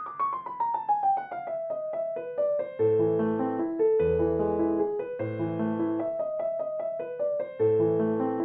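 Background piano music: a quick descending run of notes, then a gentle repeating pattern of chords with bass notes.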